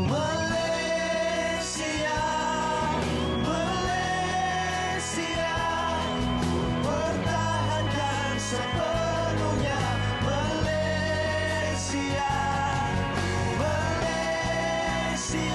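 Male pop vocal group singing in harmony over band backing, with long held notes that slide up into pitch.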